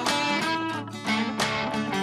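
Intro music led by strummed guitar, with a chord struck every few tenths of a second.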